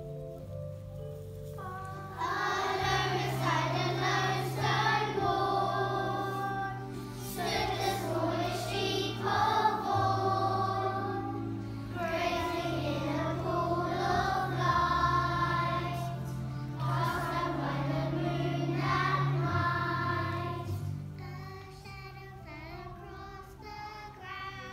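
A choir of young schoolchildren singing a song together over instrumental accompaniment, the voices coming in about two seconds in after a short instrumental lead-in.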